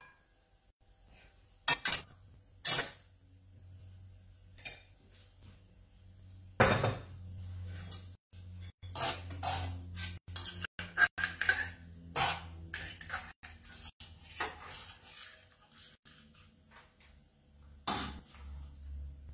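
Metal tongs and a ladle clinking and scraping against a frying pan and a plate as pasta is lifted and twisted out for serving, in scattered clanks and short scrapes.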